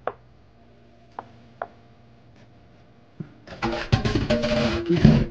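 A silicone spatula scraping melted butter out of a glass measuring cup into a bowl of shredded hash browns, with a few light taps. About three and a half seconds in, a louder, dense stretch of knocking and rustling begins.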